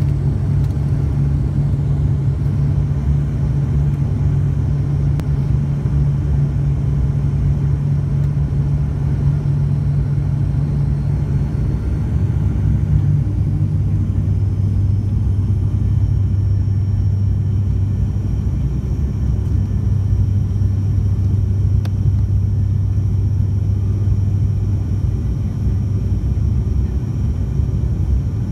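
Airliner engines and cabin noise heard from inside the passenger cabin on descent: a loud, steady low drone with a strong hum that steps down to a lower pitch about twelve seconds in.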